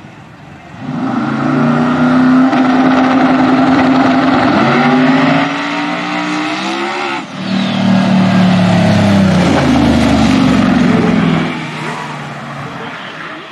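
A 2500 hp twin-turbo V8 drag car running at full throttle. Its pitch climbs in steps, breaks sharply about seven seconds in, climbs again, then drops away near the end as the run ends and the parachutes come out.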